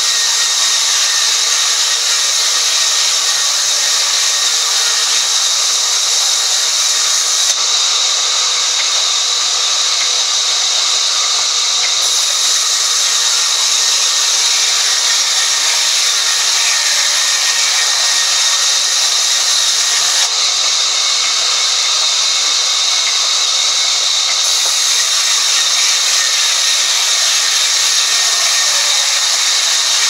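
Sawmill band saw ripping lengthwise through a long mahogany plank, a loud, steady, high-pitched noise of blade in wood that runs without a break.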